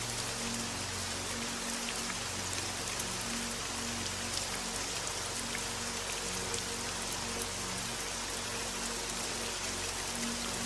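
Steady rain, a dense hiss flecked with small drop ticks, over soft, low sustained music notes that shift slowly.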